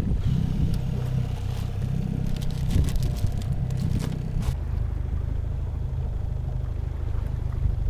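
Small outboard motor running steadily at low trolling speed, a low drone, with a few knocks and rattles of fishing gear in the boat during the first half.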